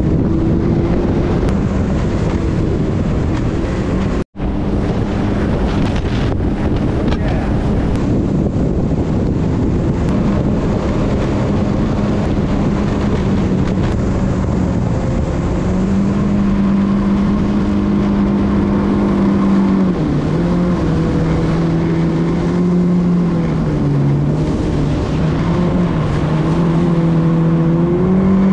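Yamaha FX Cruiser HO WaveRunner's four-cylinder four-stroke engine running at speed, with wind noise on the microphone. The engine drone holds steady, then shifts up and down in pitch in the second half as the throttle changes; the sound cuts out for an instant about four seconds in.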